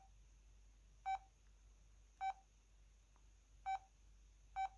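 O2 Ice mobile phone's keypad tones: four short, identical beeps about a second apart as its keys are pressed to step through the menu.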